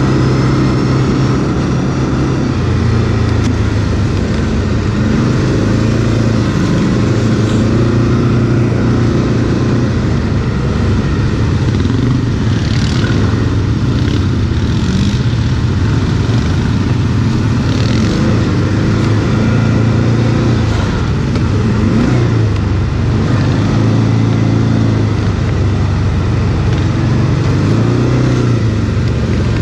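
ATV (quad bike) engine under way offroad, its revs repeatedly rising and falling as the rider works the throttle.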